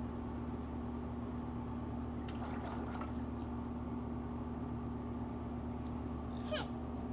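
Steady hum of an outdoor air-conditioning condenser unit running, with faint splashes of water and a short falling squeal near the end.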